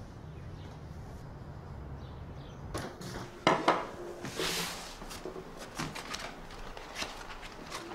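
Low room hum, then about three seconds in a few sharp knocks of things set down on a wooden table, followed by the rustling swish and light slaps of a book's pages being flipped through.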